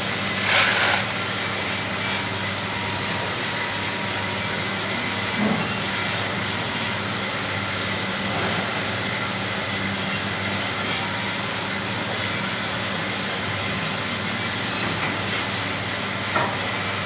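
Steady mechanical running noise with a low hum. A short loud hiss comes about half a second in, and there are two faint knocks, one near the middle and one near the end.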